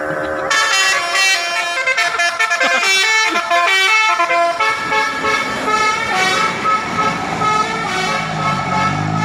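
Bus telolet horn, a multi-tone musical air horn on an Indonesian bus. From about half a second in it plays a quick string of changing notes, then settles into longer, steadier tones. A bus engine comes up low underneath near the end.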